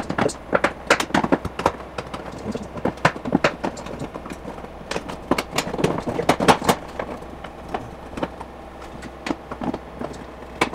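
Parts at the front end of a Tesla Model X being pulled and worked loose by hand: a run of irregular clicks, knocks and rattles.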